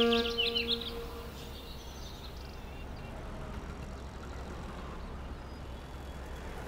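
A held brass note from the film's score fades out in the first second, with birds chirping high and briefly. Then a steady, faint outdoor background with a low hum takes over, like distant city noise.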